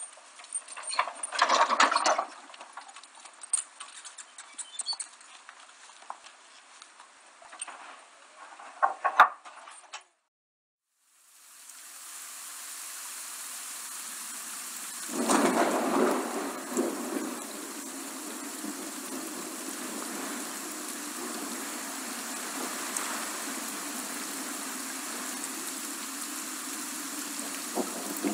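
Steady rain, a hiss that fades in about eleven seconds in after a moment of silence, with a louder rush about four seconds later. Before the rain, scattered clicks and short noises come and go.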